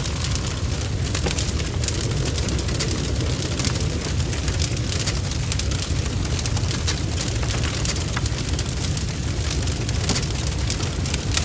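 Large barn fire burning, heard from inside the blaze: a steady low rumble of flames under dense, constant crackling and spitting.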